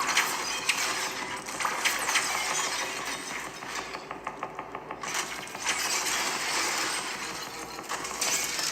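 Action-movie sound effects: a dense run of metallic clanks, clicks and crashes over a noisy rushing wash, easing off briefly about four seconds in.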